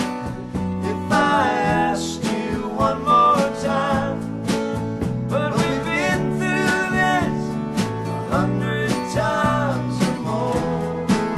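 Country-style folk music: acoustic guitar accompaniment under a melody of held, wavering notes.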